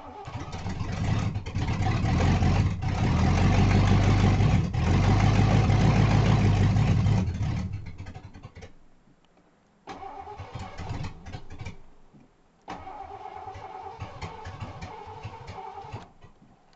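1988 Ford Crown Victoria's V8 catching and running loud for about seven seconds on its first start after a top-end rebuild, then dying; it is cranked twice more with the starter without catching. The owner puts the poor running down to ignition timing not yet set.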